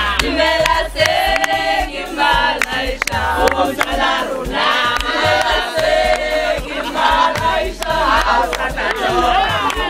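A group of women singing together, with handclaps about twice a second keeping time.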